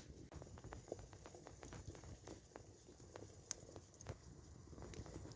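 Campfire crackling faintly, with many small irregular snaps and clicks.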